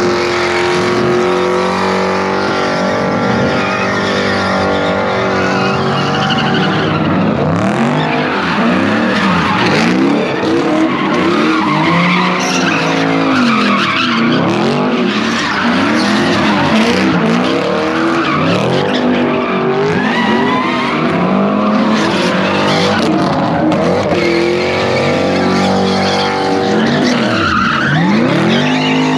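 Cars spinning donuts, engines revving hard with tires screeching. The engine pitch holds high for the first few seconds, then rises and falls again and again as the throttle is worked.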